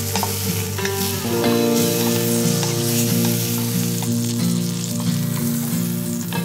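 Sirloin steak sizzling in butter in a pot, a steady hiss with scattered spattering crackles, as a wooden spatula moves the steak and pan juices. Background music plays underneath.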